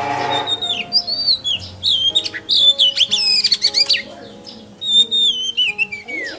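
Songbird singing a varied run of clear whistled notes, quick sweeps and rapid trills, opening with a short harsh call. Steady background music plays underneath.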